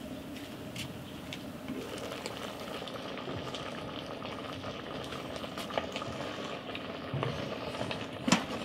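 Pork bubbling and sizzling in its own juices in a metal cooking pot, a steady hiss full of small crackles. Near the end a wooden spatula stirs the meat, with one sharp knock against the pot.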